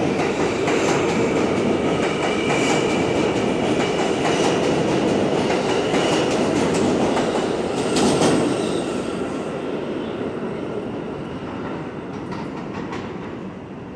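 New York City subway train pulling out of an underground station, its wheels clacking over rail joints with some wheel squeal. The sound peaks about eight seconds in and then fades steadily as the train moves off into the tunnel.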